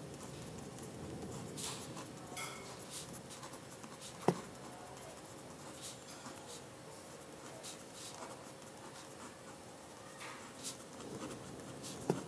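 Pen scratching on paper as equations are written by hand, in faint irregular strokes. A short sharp click about four seconds in and another near the end.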